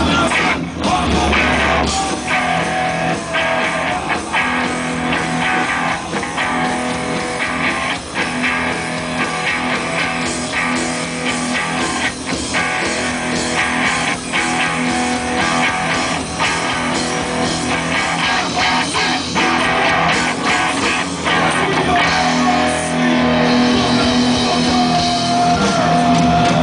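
Loud music playing over a festival sound system, with sustained tones and a driving beat.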